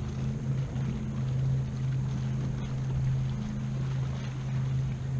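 A boat motor drones steadily at a low pitch, with water lapping at the kayak's hull.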